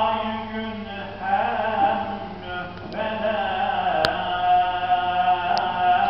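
A male voice chanting an Islamic religious recitation, drawing out long notes that waver and glide in pitch, with a short click about four seconds in.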